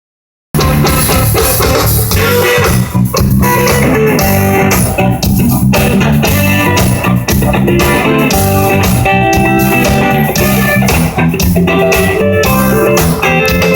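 Blues-style electric guitar playing through an amplifier, with a bass line underneath, starting abruptly about half a second in.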